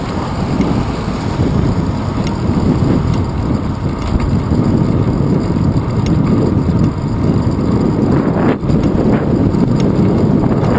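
Wind buffeting the microphone of a handlebar-mounted GoPro Hero 2 on a moving bicycle: a loud, steady, gusting low rumble.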